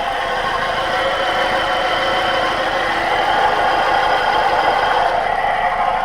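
2011 Opel Astra's engine running with a steady mechanical clatter: the unusual engine noise whose cause the owner is asking about.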